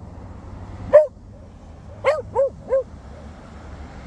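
Beagle giving short, high yips: one about a second in, then three quick ones in a row a second later.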